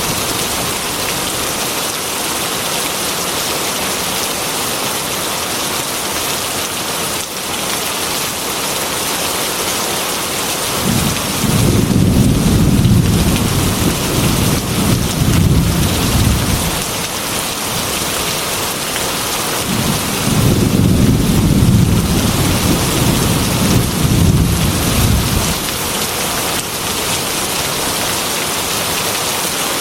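Heavy rain beating steadily on a glass window, with two long rolls of thunder, the first about eleven seconds in and the second about twenty seconds in, each lasting five or six seconds.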